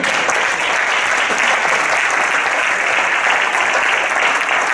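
Congregation applauding, a dense, steady clapping throughout.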